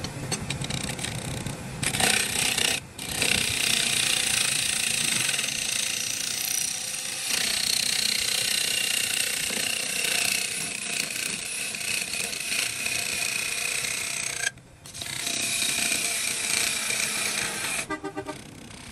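A power tool working wood, with a steady high-pitched hiss and a faint whine. It breaks off briefly about three seconds in and again near the end, then fades out in a quick ticking.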